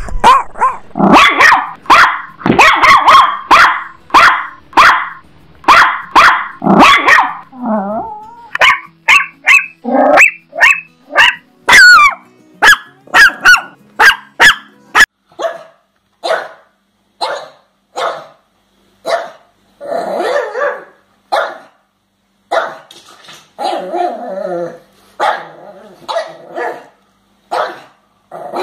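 Chihuahua barking: fast runs of high, sharp yaps, with a high rising squeal about twelve seconds in. About fifteen seconds in this gives way to pugs barking, single deeper barks about one or two a second.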